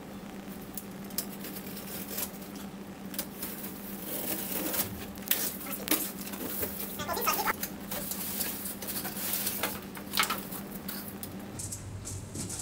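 Sped-up rustling, scraping and tapping of a cardboard shipping box being opened, packing tape slit with a box cutter and the flaps pulled back. A steady low hum runs underneath and stops near the end.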